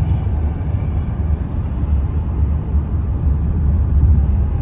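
Steady low road rumble heard from inside a moving car's cabin: tyre and engine noise.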